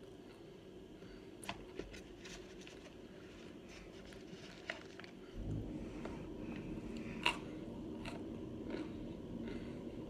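Chewing and biting of hard baked cornstarch chunks: scattered sharp, crackling crunches, the loudest crack about seven seconds in, with a dull thump a little after five seconds.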